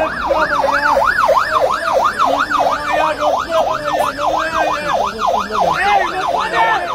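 Police car siren in its fast yelp mode, the pitch sweeping up and down about three and a half times a second without a break.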